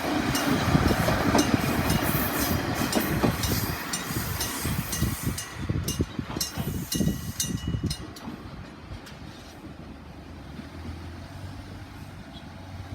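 A Kominato Railway diesel railcar passing over a level crossing, its wheels knocking over the rail joints and the sound fading as it moves away. The crossing's electric bell rings steadily and stops about eight seconds in.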